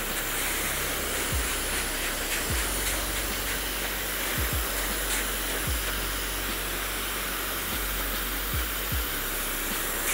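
Handheld hair dryer blowing steadily on high speed, a continuous airy rush. A few brief low puffs of air buffeting come and go as the dryer is swept back and forth.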